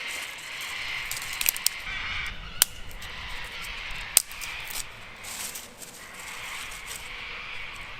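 Rustling and crunching of leaves and twigs in swelling bouts, with a few sharp snaps or clicks.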